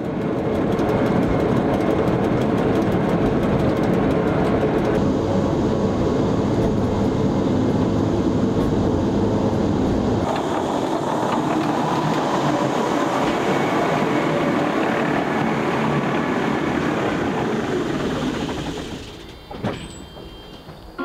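Pilatus Railway Bhe 1/2 electric rack railcar running on the Locher rack, heard from inside the cab: a steady, loud running noise of drive and cog gearing on the rack. Near the end it drops away to a much quieter sound with a few clicks.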